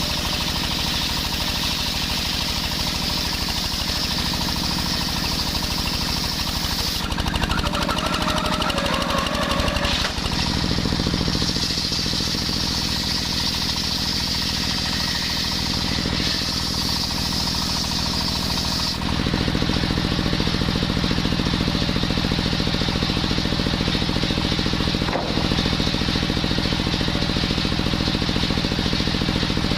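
Two-stroke brushcutter engine driving a circular saw blade through coconut wood, running steadily at high speed. A high cutting hiss comes and goes as the blade bites, and it drops away about two-thirds through, leaving the engine running on.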